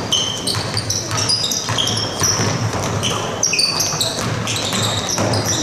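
Basketball game on a gym court: sneakers squeaking many times in quick, short, high chirps, with a ball bouncing and crowd voices underneath.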